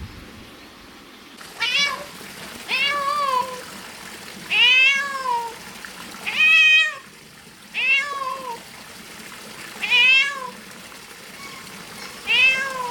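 A cat meowing over and over: seven meows, each rising then falling in pitch, about one and a half to two seconds apart.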